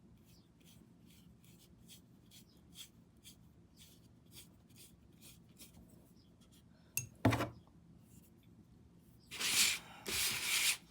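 Paintbrush stroking a thin gray paint-and-Mod-Podge glaze over a painted puzzle board: soft strokes two or three a second, a knock about seven seconds in, then louder scrubbing strokes near the end.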